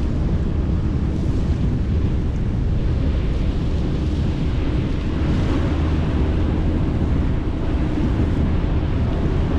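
Wind buffeting the microphone over the steady low rumble of a tour boat's engine.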